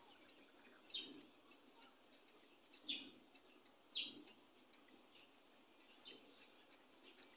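Whiteboard marker squeaking against the board in short writing strokes: four brief squeaks spread irregularly, each dropping quickly in pitch, over a faint background hiss.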